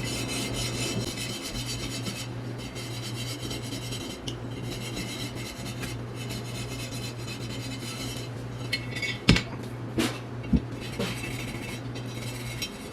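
Steady rasping and rubbing of cast iron being scrubbed clean, with a few sharp knocks about nine to ten seconds in.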